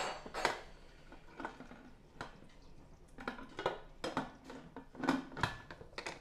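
Aluminium pressure cooker being closed: the lid fitted and locked, then the weight set on the vent pipe, giving a string of light metal clicks and clinks, roughly one or two a second.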